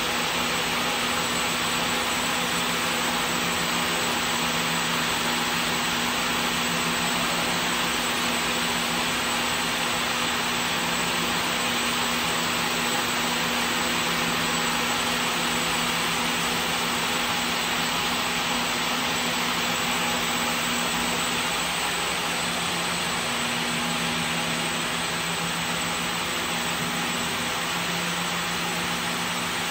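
Crepe TFO (two-for-one) yarn twisting machine running at speed, its many spindles making a steady dense whir with a low, even hum underneath.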